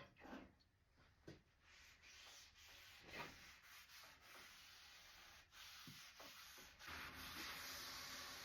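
Faint sanding on wood: a few short separate strokes, then a steadier stretch of rubbing from about seven seconds in.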